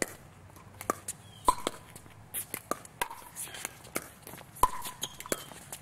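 Pickleball paddles striking the hollow plastic ball in a fast doubles exchange at the net: a quick, irregular run of sharp pocks, each with a short ringing tone, the loudest about a second and a half in and again near the end.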